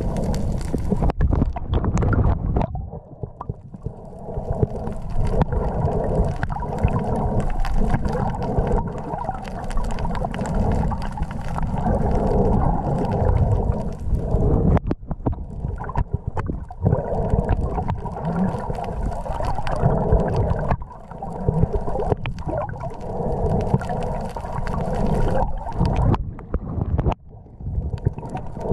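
Underwater sound picked up by a camera inside its waterproof housing: a muffled low rumble of moving water with a steady hum and many scattered knocks. The sound dips briefly a few times.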